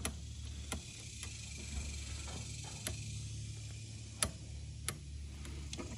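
Faint, scattered clicks as the throttle linkage on a Kawasaki Brute Force 300 carburetor is worked by hand, a handful of them at uneven spacing over a low steady hum.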